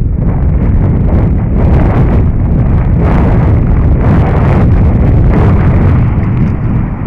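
Wind rushing over a helmet camera's microphone during a fast downhill mountain-bike descent, loud and steady, with frequent knocks and rattles from the bike over the rough dirt trail.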